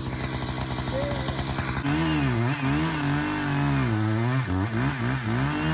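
Chainsaw engine running, steady at first. From about two seconds in its pitch rises and falls continuously as the engine speed varies.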